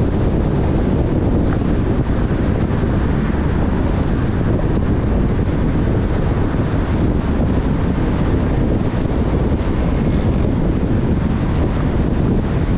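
Steady wind and road noise of a car driving at speed on a highway, with wind rumbling on the microphone.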